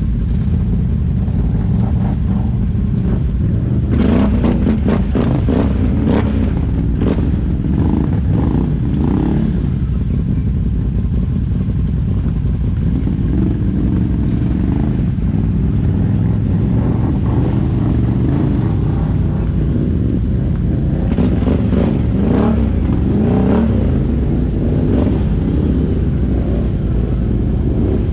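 ATV engine running steadily as the machine rides along a trail, with bursts of clattering knocks twice: roughly 4 to 9 seconds in and again around 21 to 24 seconds in.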